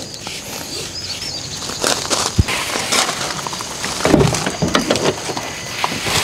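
A few scattered knocks and rustles, the loudest a sharp thump about two seconds in and a cluster of knocks about four seconds in, with a small bird chirping briefly during the first second.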